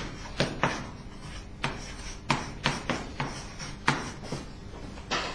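Chalk writing on a blackboard: a string of short, irregularly spaced taps and scrapes.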